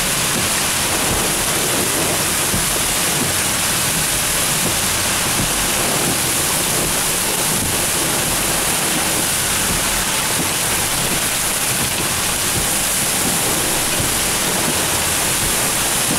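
Torrential thunderstorm rain driven by strong wind, a steady, loud rush of noise.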